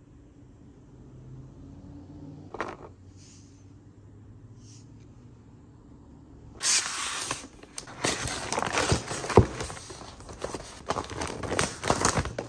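Gift wrapping paper being torn and crinkled as a present is unwrapped, a dense run of rips and crackles starting about halfway through. Before that there is a single light tap.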